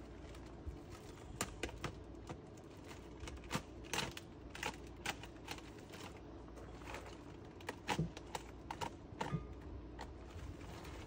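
Irregular light clicks and knocks of packed sawmill parts being handled and shifted inside a wooden shipping crate, with a few louder knocks about four and eight seconds in.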